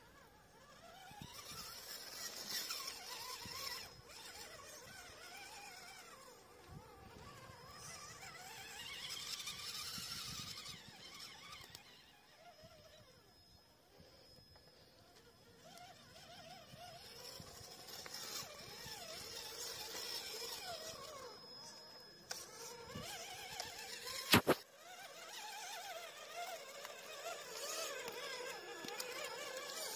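Small RC crawler's electric motor and gear train whining, the pitch rising and falling as the throttle is worked over the rocks. One sharp click stands out late on.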